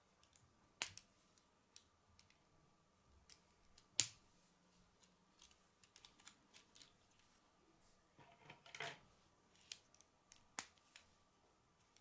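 Plastic K'nex rods and connectors clicking together as they are fitted by hand: scattered light clicks, two sharper snaps about a second and four seconds in, and a short rattle of parts a little past eight seconds.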